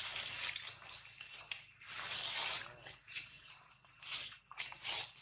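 Irregular crackling rustles of dry leaf litter as macaques shift about on the forest floor, the longest rustle about two seconds in, over a faint steady high insect drone.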